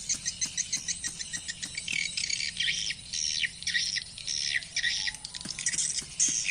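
Swiftlet call sound (suara panggil): the twittering lure call of edible-nest swiftlets played through tweeter speakers. It comes as rapid trains of high chirps, several a second, loudest from about two to five seconds in.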